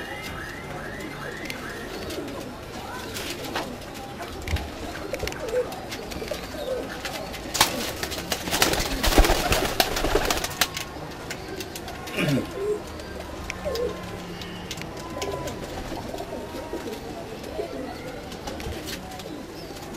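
Domestic pigeons cooing, with a brief flurry of wing flapping about halfway through.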